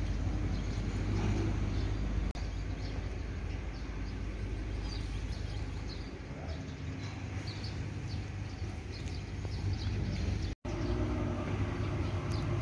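Outdoor background: a steady low rumble with frequent short, high bird chirps over it, broken by two brief dropouts about two seconds in and near the end.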